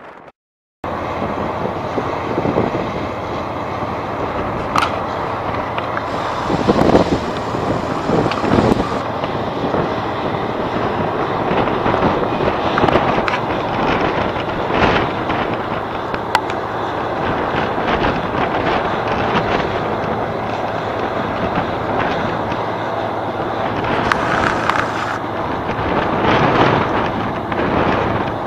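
Twin diesel engines of a Caterpillar 627B wheel tractor-scraper running hard under load, a loud steady din with occasional sharp clanks from the machine. It starts after a brief gap.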